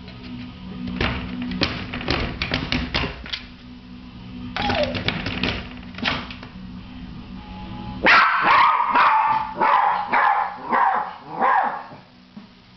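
Small Maltese dog barking at being left alone, typical of separation anxiety: two runs of quick, sharp barks, then from about 8 s a louder string of high yelping barks.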